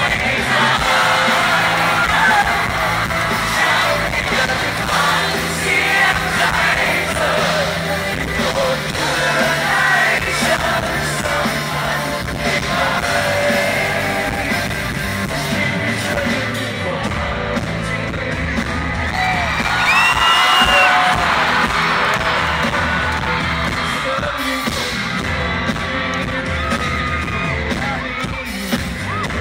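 A rock band playing live, with drums, electric guitar and keyboards under a lead singer, and shouts and yells heard over the music.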